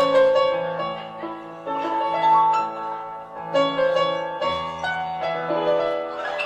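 Live band playing an instrumental dance break, led by piano chords and single notes, with a low bass note about four and a half seconds in.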